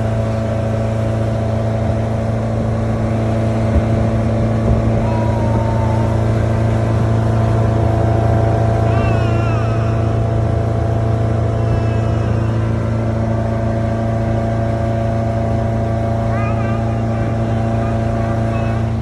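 Boat motor running steadily at a constant speed, a low, even drone that does not change.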